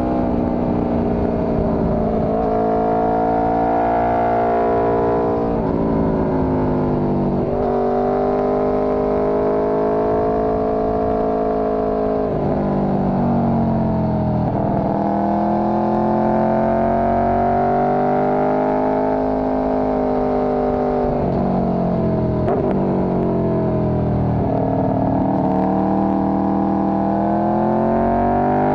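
Motorcycle engine under way, its revs climbing and then dropping sharply several times, as at gear changes, over a low rushing noise.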